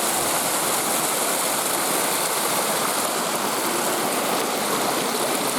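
Woodland stream running: a steady, even rush of flowing water.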